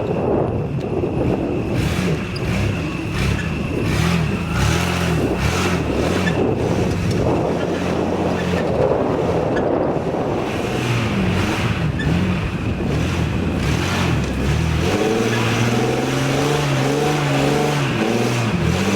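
Old Nissan Pathfinder 4x4's engine revving up and falling back over and over, then held at higher revs near the end, with knocks and rattles from the body. It is being driven off-road in two-wheel drive and is straining to get through, ending up stuck.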